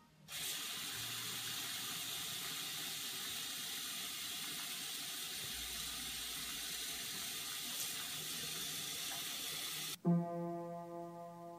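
Bathroom sink faucet running steadily into the basin, turned on about half a second in. It cuts off near the end and a few piano keys are struck, the notes ringing and dying away.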